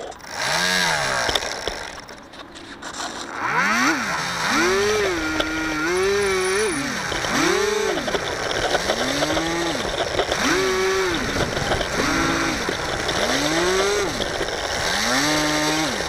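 The electric motor and propeller of a HobbyZone Firebird Delta Ray RC plane are throttled up and down in repeated short bursts. Each burst rises and then falls in pitch.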